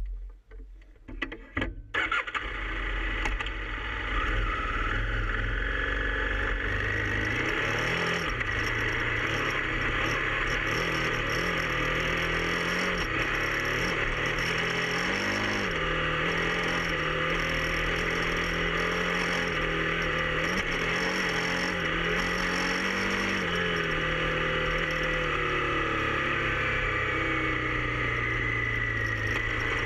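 KTM 990 Adventure R's V-twin engine starting, uneven for about two seconds before catching and running, its pitch moving up and down, then settling lower near the end.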